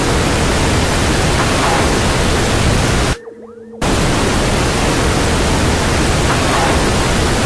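Loud, steady hiss of a portable audio recorder's playback turned up to high gain, with a short drop just after three seconds in. A faint voice-like sound, presented as an EVP saying "Goodbye", is buried in the hiss.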